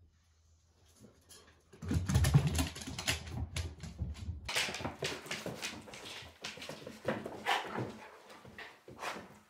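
Goldendoodle making a run of short whimpering sounds. A low rumble runs under it from about two seconds in to about four and a half seconds in.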